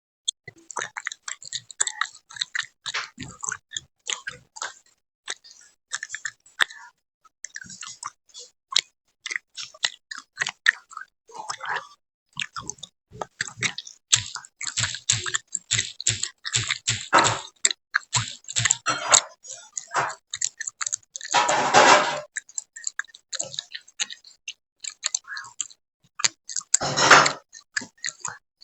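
Chewing gum chewed close to the microphone: irregular wet smacks and clicks in quick succession, with two longer, louder squelches, one a little past the middle and one near the end.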